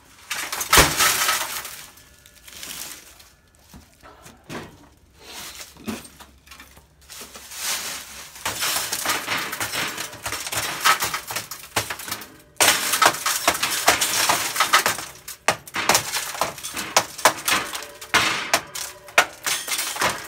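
Broken tempered oven-door glass crunching and tinkling as a wooden stick knocks and scrapes the pieces out of the door frame, after one loud knock about a second in. The crunching runs almost without a break from about eight seconds on.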